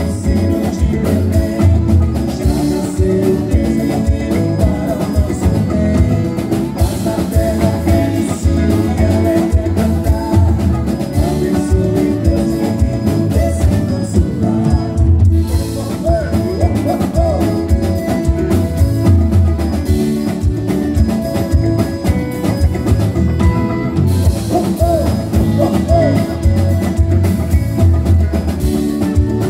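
Live band playing with a drum kit, electric guitar and accordion, and male singers on microphones.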